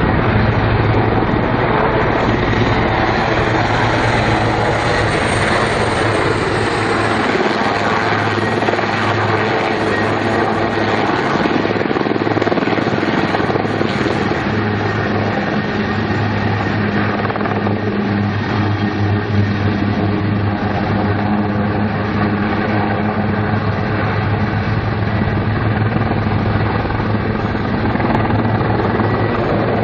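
Denel Rooivalk attack helicopter in flight: steady rotor and turbine noise with a constant low hum.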